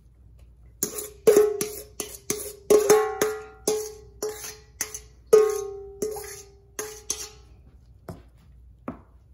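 Metal spoon clanking against a stainless steel mixing bowl while scraping food out of it: about fifteen quick knocks over six seconds, each ringing briefly with the bowl's tone, then they stop.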